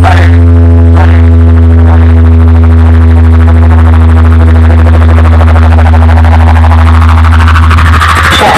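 A DJ box-speaker wall holds a single deep, buzzy bass tone with many overtones, very loud and steady for about eight seconds, then cuts off shortly before the end.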